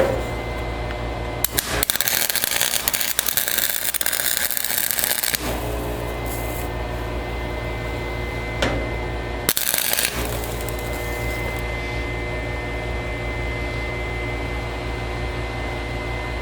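MIG welder arcing in two bursts, a long one of about three and a half seconds near the start and a short one past the middle, welding onto a sheared, rusted bolt to get it out. A steady hum runs underneath.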